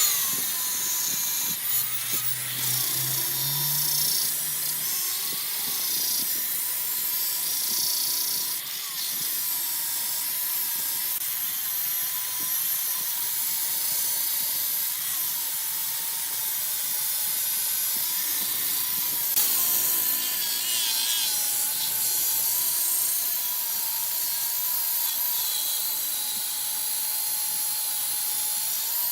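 Wood lathe running with a turning tool cutting into the spinning wooden workpiece, a steady hiss with a wavering whine through it.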